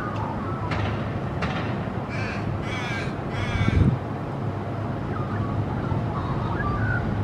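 Little raven giving three harsh caws in quick succession about two seconds in, over a steady rumble of road traffic.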